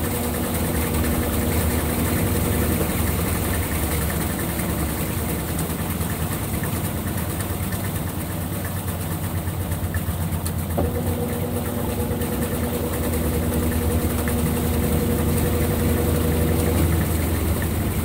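Consul 16 kg top-load washing machine spinning its basket, a steady motor hum. A faint whine drops out about three seconds in and comes back about eleven seconds in.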